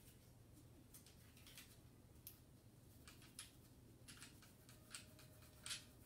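Faint, scattered clicks and light scraping of gloved hands and a cleaning pad rubbing over a Springfield Hellcat pistol as it is wiped down. The loudest scrape comes near the end.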